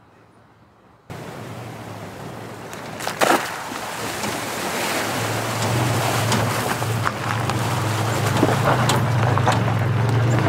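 Toyota pickup truck driving through a shallow rocky creek crossing: water rushing and splashing under the tyres, with a sharp knock about three seconds in. A steady low engine hum grows louder as the truck comes close.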